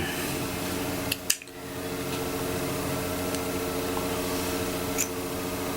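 Steady machine hum of room equipment such as a fan or air conditioner, with a single sharp click a little over a second in and a faint tick near the end.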